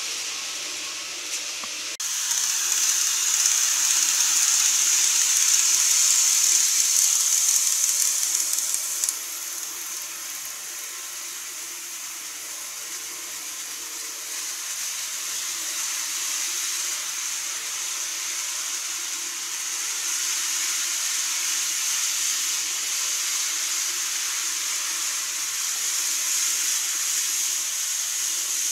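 KATO N-gauge model trains running on the layout track: a steady whirring hiss of the small motors and wheels on the rails. It jumps louder about two seconds in and drops back about nine seconds in.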